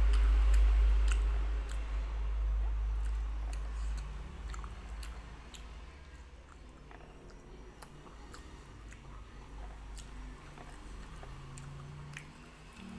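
Close-miked chewing of kikil, chewy beef skin, with scattered small wet mouth clicks. A loud low rumble fills the first few seconds, then fades.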